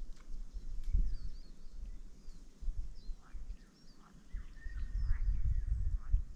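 Small birds chirping and singing in short, scattered calls, over an uneven low rumble on the microphone that grows louder in the second half.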